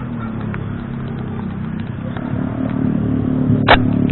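Steady drone of running vehicle engines, with a single sharp firework bang near the end.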